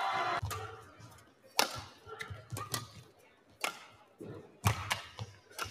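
Badminton rally: rackets striking a shuttlecock in sharp, short cracks about one to two seconds apart, over light thuds of footwork on the court. There is a brief squeal of court shoes at the very start, the loudest moment.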